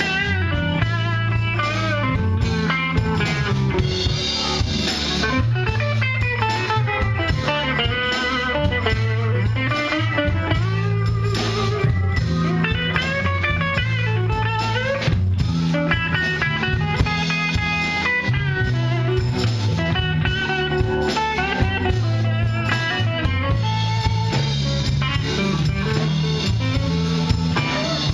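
Live blues-rock band playing: electric guitars, bass, drums and keyboard, with a guitar prominent in the mix.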